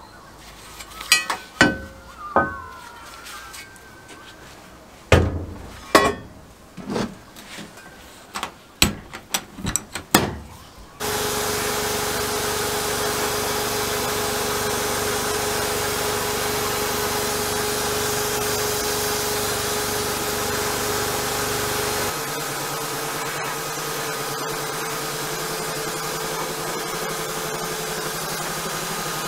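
Several knocks and clunks of the forge blower's metal housing being handled and set inside a sandblasting cabinet. About eleven seconds in, a sandblast gun starts and hisses steadily against the housing, with a steady hum underneath. The noise drops a little about halfway through.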